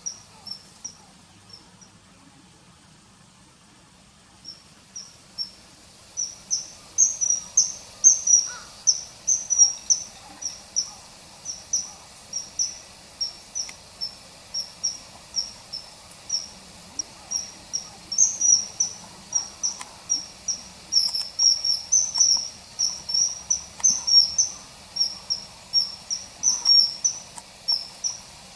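Common kingfisher calling: a fast series of short, shrill, high-pitched notes, two to three a second, broken by a pause of a few seconds near the start.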